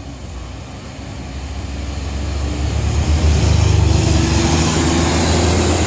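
Large coach bus driving past close by, its engine rumble and road noise swelling as it approaches and loudest about three and a half seconds in.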